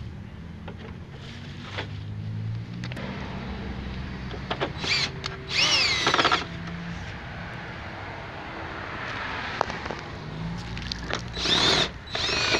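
DeWalt cordless drill/driver driving screws into a plastic truck grille. It runs in short bursts, the motor pitch rising and falling with the trigger: a pair of bursts around the middle and another pair near the end.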